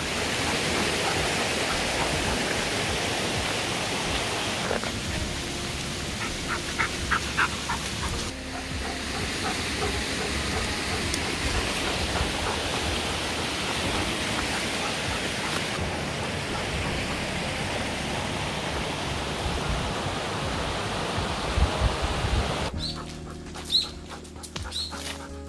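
Steady rush of a rocky mountain creek: an even hiss with a low rumble underneath. Near the end it cuts off abruptly, leaving quieter steady low tones and a few short high chirps.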